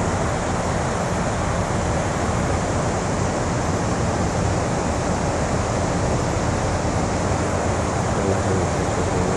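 Fast river current rushing over a riffle: a steady, unbroken noise of churning water.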